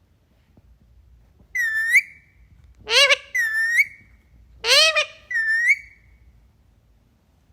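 A parakeet giving five short whistled calls in quick succession, alternating a high dipping note with a lower note that sweeps upward.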